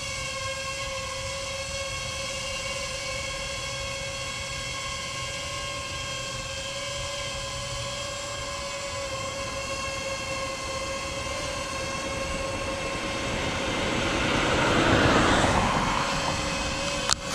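DJI FPV drone's propellers whining steadily with a stack of even tones. About two-thirds of the way in, a rush of noise from a vehicle passing on the road swells and fades. A sharp click comes at the very end.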